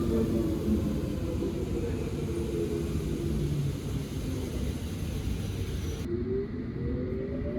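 Vehicle running with a steady low rumble, under a whine of several tones that slowly falls in pitch. About six seconds in the sound cuts abruptly to a duller rumble, and a new whine starts rising in pitch.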